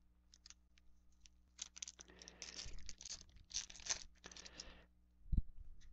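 Foil wrapper of a Topps Chrome card pack being torn open, crinkling in bursts for about three seconds, with a soft thump near the end.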